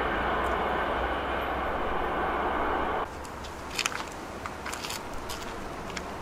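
A train passing with a steady rolling rush of noise that cuts off suddenly about halfway through. After that there is a much quieter background with a few short, high chirps.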